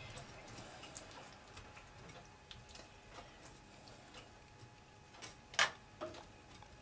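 Metal spoon lightly clinking and scraping against a metal roasting tray as the pan sauce is spooned over a meat roll, with a sharper clink about five and a half seconds in.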